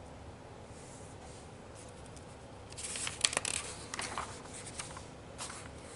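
A magazine page being turned by hand. About three seconds in there is a burst of paper rustling and crackling with one crisp click, followed by a few fainter rustles as the page settles.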